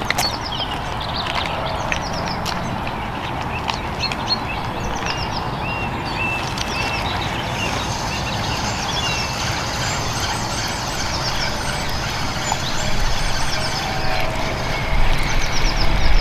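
Several songbirds chirping and trilling over a steady low background rush. The low rush grows louder in the last few seconds.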